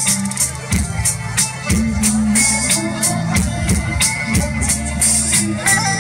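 Loud song music with a steady drum beat, about three hits a second, over a deep bass line, with no clear vocal line.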